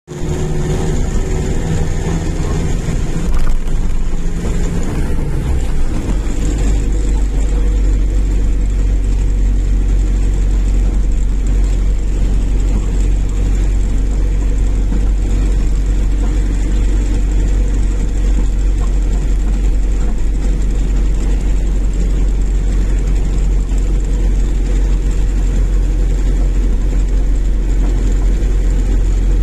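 Car cabin noise while driving: a steady low rumble of engine and tyres on the road. An engine tone shifts in pitch during the first few seconds, with a brief knock about three and a half seconds in.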